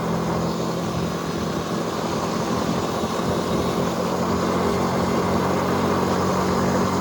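A small 110 cc motorbike engine running at a steady speed while riding, with wind rushing over the microphone; the engine note grows a little louder near the end.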